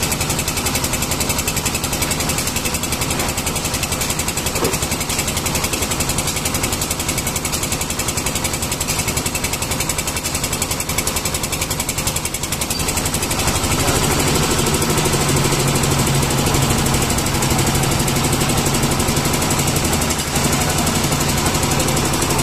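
Engine of a site concrete mixer and lift machine running steadily with a fast, even knocking beat. A little past halfway it grows louder and heavier.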